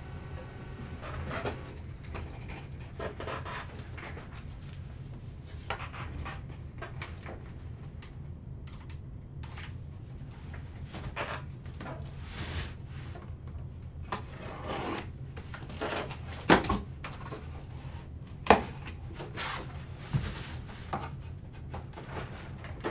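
Football trading card packs and cards being opened and handled: scattered rubbing, rustling and light taps over a steady low hum, with two sharper knocks in the second half.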